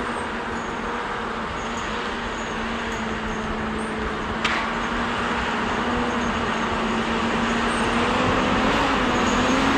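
Tigercat 610E log skidder's diesel engine running as the machine drives toward the listener, a steady engine drone growing gradually louder, with a slight lift in pitch near the end. One sharp click about halfway through.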